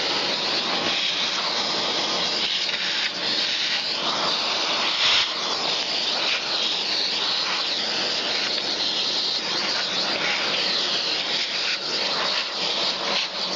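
Kärcher vacuum cleaner switched on and running steadily, a loud airy hiss of suction; it is rigged as chip extraction for a router that is not yet cutting.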